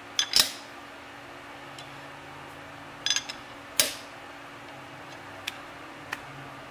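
Sharp metal-on-metal knocks and clinks at a lathe chuck as a steel bar is adjusted to run true: two quick pairs of strikes, one at the start and one about three seconds in, then a couple of faint ticks.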